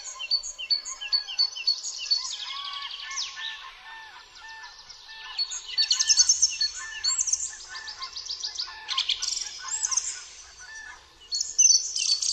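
Several songbirds singing together: overlapping chirps, whistles and rapid trills.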